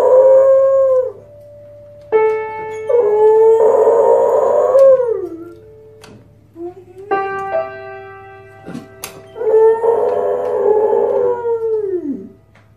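A beagle howling at the piano while pressing the keys with its front paws: three long howls, each dropping in pitch at its end, with piano notes and chords struck between them.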